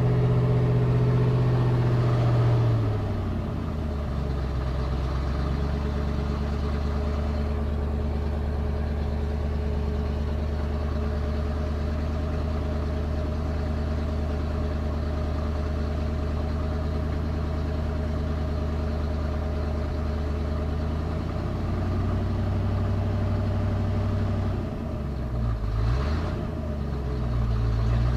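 Freshly rebuilt, carbureted 351 Windsor V8 in a 1991 Ford F250 running: it drops from a fast idle to a low idle about two and a half seconds in and runs steadily, then picks up slightly, sags and recovers near the end. It doesn't really want to idle.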